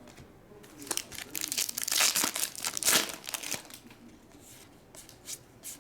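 Wrapper of a 2024 Bowman baseball hobby pack crinkling and tearing open by hand, loudest about two to three seconds in, followed by a few light clicks.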